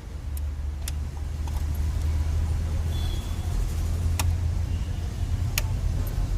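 A steady low engine hum in the background, with a few sharp metallic clicks from tools working on the engine control unit's mounting bolts.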